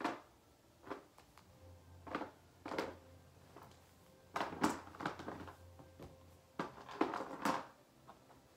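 Small plastic toy figures being rummaged through and knocked against each other: a series of irregular clatters and rustles.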